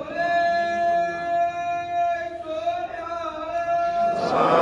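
Devotional singing: one voice holds a long, steady sung note that wavers briefly past the middle. Just before the end a louder burst of voices comes in.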